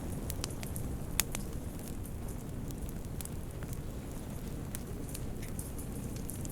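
Wood fire burning in a fireplace: a steady low rumble of flames with scattered sharp crackles and pops, the loudest pop about a second in.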